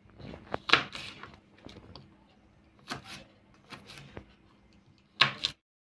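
Kitchen knife slicing okra lengthwise on a plastic cutting board: irregular taps and short scrapes of the blade against the board, the loudest about a second in and again near the end, then the sound cuts off suddenly.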